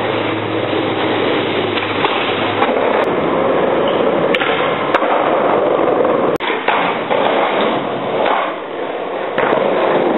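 Skateboard wheels rolling loudly over pavement, with several sharp clacks of the board popping and landing.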